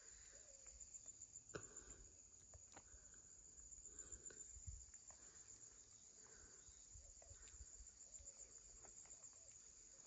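Faint, steady, high-pitched trilling of field insects, with a few soft footsteps on the ground.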